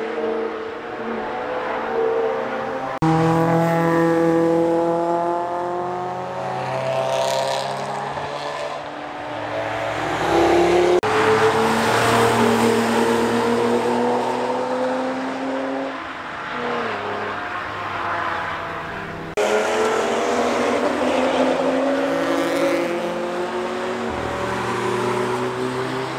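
Track-day cars driven hard past a Nordschleife corner, one after another, their engine notes sliding up and down in pitch as they brake, change gear and accelerate away. The sound jumps abruptly from one car to the next a few times.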